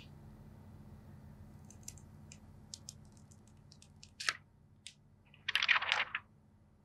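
Protective plastic film being peeled off a portable music player's glass screen: scattered small crackles and ticks, a sharp click about four seconds in, and a louder crinkling rustle near the end, over a faint steady hum.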